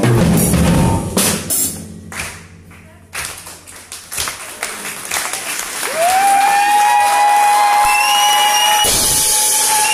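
A live rock band of electric guitar and drums ends a song with a few last drum and cymbal hits that ring out and fade. About three seconds in, the audience starts clapping. This swells into steady applause with a long, high whistle.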